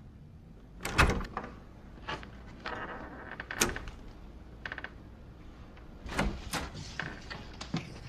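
A room door being handled and opened: a string of sharp clicks and knocks from the latch and door, the loudest about a second in.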